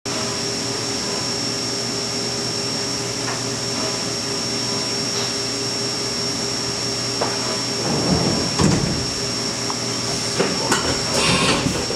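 Steady hum of a CNC vertical mill running between cuts, with a constant high whine. About eight seconds in come irregular metal knocks and clatter as an aluminium block is set into the vise and clamped, with more knocks near the end.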